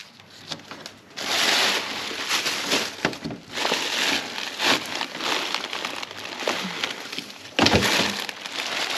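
Plastic bags and bin contents rustling and crinkling while being rummaged through in a wheelie bin. The rustling is irregular and starts about a second in.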